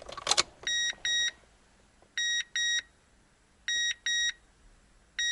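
A car's electronic warning beeper sounding in double beeps of one steady high tone, repeating about every one and a half seconds, while the ignition is on. A brief rustle comes just before the first pair.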